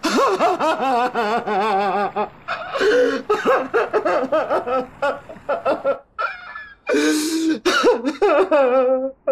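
A man wailing and sobbing loudly in long, quavering cries that break off and start again.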